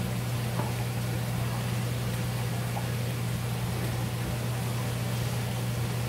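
Steady low mechanical hum, with a few faint light ticks.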